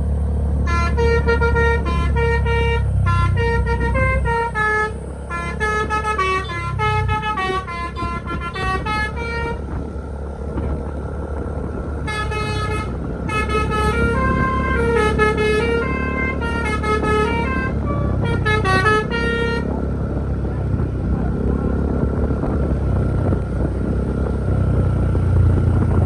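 A bus's Basuri 'telolet' multi-tone horn plays a quick melody of short notes in two runs of about eight seconds each, with a short pause between. A steady low engine and road rumble runs underneath.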